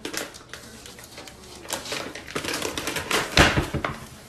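A crinkly plastic food bag rustling and crackling in irregular bursts as a cat drags it out of a wooden kitchen cabinet and across a wood floor. A louder thump comes about three seconds in.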